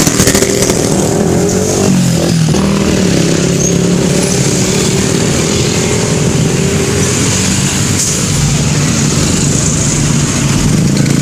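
Road traffic passing close by: vehicle engines running in a steady drone, dipping in pitch about two seconds in. No horn melody is heard.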